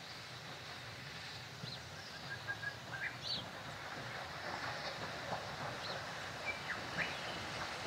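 Distant steam train approaching: a faint low rumble that slowly grows louder. Several short bird chirps and a brief trill sound over it.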